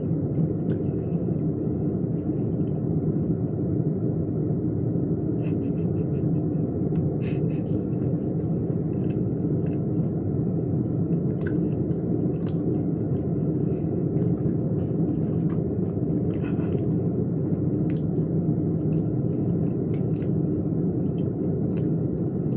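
A steady low rumble of background noise with no change in level, with faint, scattered small clicks and ticks.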